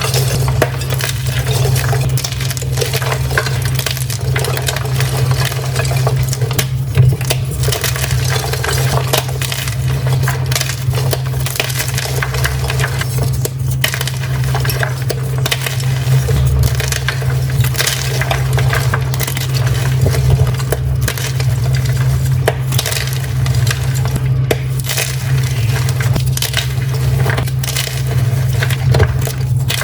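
Dyed gym chalk being crushed, a dense run of crisp crunches and crackles over a steady low hum.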